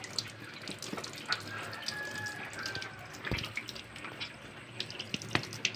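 Kitchen faucet running, water splashing over a fish held under the stream and into a stainless steel sink. Two sharp knocks, one a little past halfway and one near the end.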